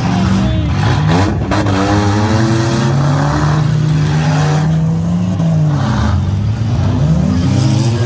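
Demolition derby cars' engines revving hard, their pitch rising and falling again and again as they drive and ram, with a few sharp bangs of collisions about a second in.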